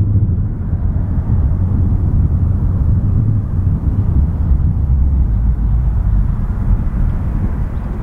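Boeing 737 airliner's jet engines on final approach to land, a steady low rumble.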